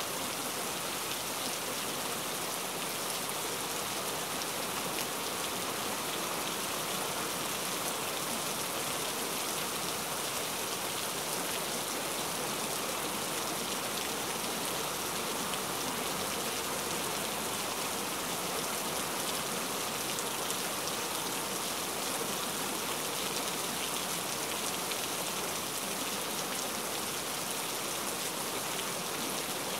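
Steady recorded rain, an even hiss of drops with no rise or fall, used as the background layer of a subliminal audio track.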